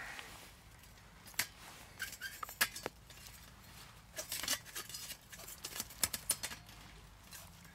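Stainless-steel trivet and top ring of a wood gasifier camp stove being worked loose by gloved hands: scattered metallic clinks and scrapes in short clusters. The trivet is stiff and hard to get off.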